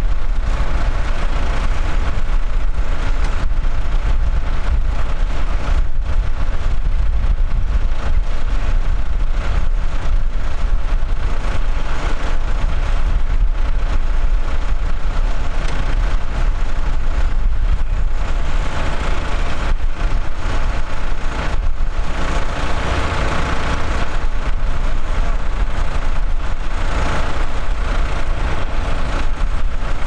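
Massey Ferguson tractor's diesel engine idling steadily with a deep, even rumble.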